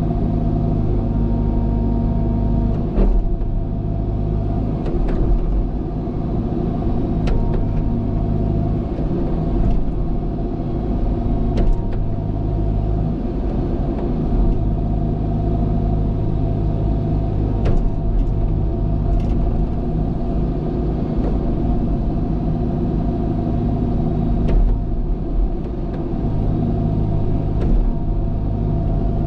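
Diesel engine of heavy earthmoving equipment running under working load, its note swelling and easing every several seconds, with scattered metallic knocks and clanks from the machine at work.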